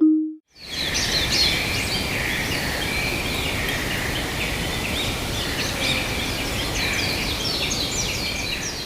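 Outdoor ambience of many small songbirds chirping and singing over one another, over a steady background hiss, starting about half a second in.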